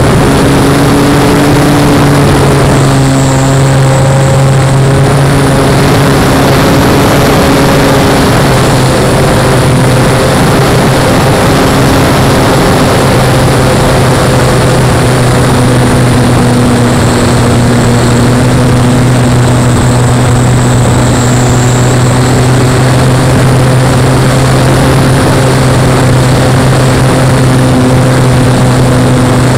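Webra Speed 55 two-stroke glow engine on nitro fuel, swinging a 13x4 APC propeller, running loud and steady at flying power, heard up close from a camera mounted on the model plane. Its pitch shifts slightly a few times as the plane manoeuvres.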